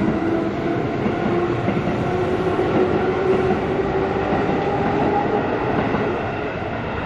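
Keihan electric commuter train running past a level crossing at close range: a steady rumble of wheels on rail under a humming motor whine that rises slightly in pitch, easing off a little near the end as the train moves away.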